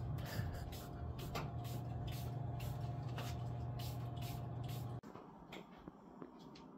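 A steady low hum with a faint tone above it and a run of light ticks, which cuts off abruptly about five seconds in, leaving a quieter background.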